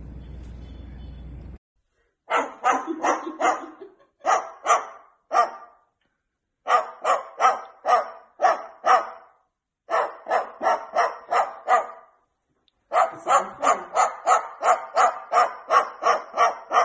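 White cockatoo barking like a dog: quick, evenly spaced barks about three a second, in four runs with short pauses between. A low steady noise before the barking cuts off about a second and a half in.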